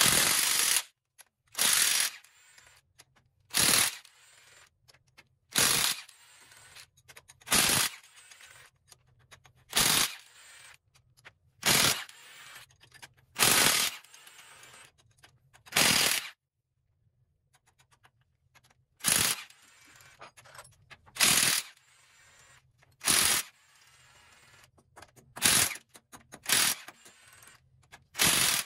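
Pneumatic impact wrench rattling in short bursts about every two seconds, undoing the cylinder head bolts of a 6D16 diesel engine one after another, with a pause of about three seconds near the middle.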